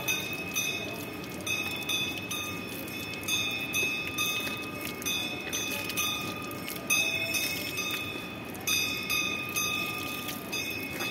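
Hindu temple bell rung over and over, struck about once every one to two seconds, each strike ringing on with a clear metallic tone. Underneath is a steady rush of spring water running.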